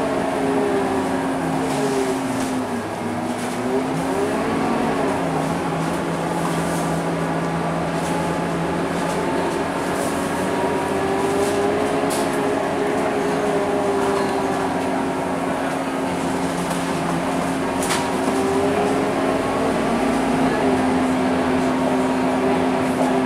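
Scania K230UB city bus heard from inside the passenger cabin on the move: a steady engine and drivetrain hum, with tones that rise and fall as the bus changes speed.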